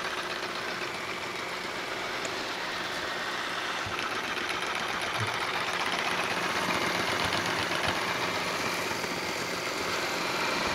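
Yeedi Vac 2 Pro robot vacuum running across a tile floor: the steady whir of its motor, unbroken throughout.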